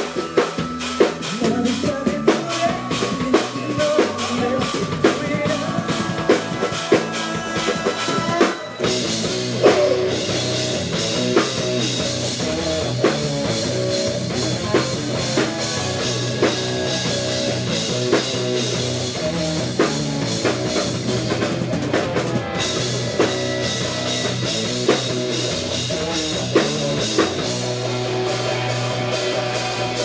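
Rock band playing live: drum kit, electric guitars and keyboards. About nine seconds in, the full band comes in denser and louder, with steady cymbal crashes.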